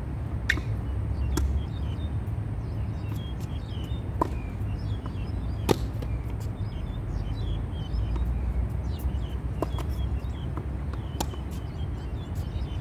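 Tennis balls popping off racket strings and bouncing on a hard court: single sharp pops a second or more apart, the loudest about six seconds in. Birds chirp lightly throughout over a low, steady rumble.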